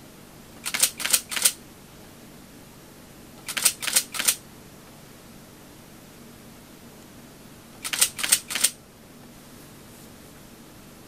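Pentax DSLR shutter and mirror firing at 1/125 s: three separate bursts, each of about three quick mechanical clicks in rapid succession.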